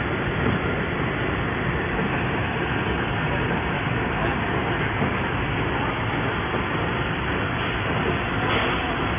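Paper bag digital printing machine running: a steady mechanical noise of its conveyor belts carrying kraft bags through the printer.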